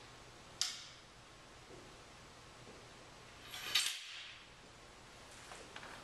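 A sharp click about half a second in, then a louder rattling clatter of hard objects being handled a few seconds later, with faint rustling near the end, against quiet room tone.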